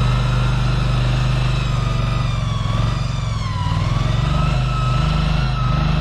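Engine of a remote-controlled machine running steadily. A whine over it dips in pitch a little past halfway, then rises again.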